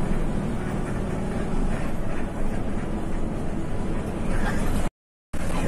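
Steady engine and road noise heard inside the cabin of a moving intercity bus. The sound cuts out completely for a moment near the end.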